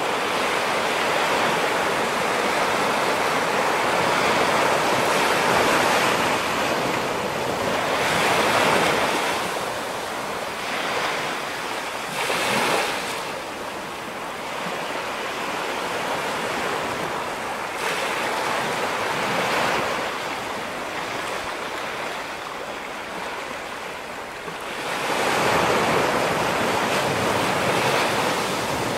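Ocean waves breaking against a rocky shore and washing back, surging and fading every few seconds, with a sharp crash about twelve seconds in and a strong surge near the end.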